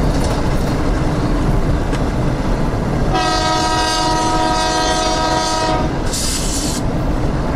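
Diesel locomotives running past with a steady rumble. A horn sounds for about three seconds starting about three seconds in, followed by a short hiss.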